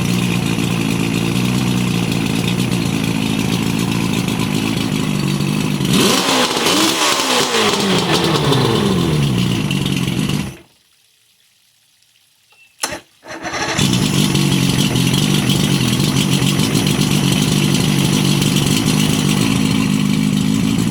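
OMC 140 hp Sea Drive outboard engine running steadily. About six seconds in its speed shifts and winds down, and then it cuts out. After about three seconds of near silence broken by a single click, it is running steadily again.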